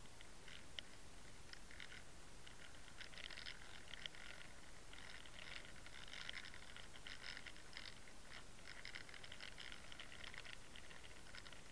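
Underwater camera towed through the water on a fishing line behind a soft-bait lure: a steady hiss with clusters of fast, irregular clicks and crackles that thicken in the middle and come and go.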